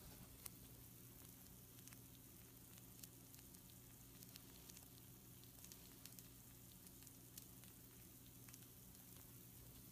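Pizza rolls faintly sizzling on a baking sheet: a soft hiss with scattered small crackles and pops, over a low steady hum.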